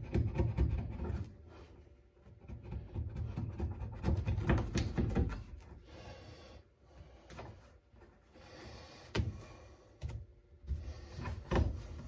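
Irregular knocks, thumps and rubbing as carpet is handled and pressed into place on a car's floor pan, with a few sharp clicks.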